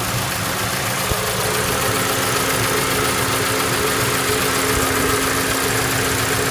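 Toyota Voxy's 1AZ 2.0-litre four-cylinder engine running steadily with an abnormal noise. The owner judges the engine finished; it is also blowing white smoke.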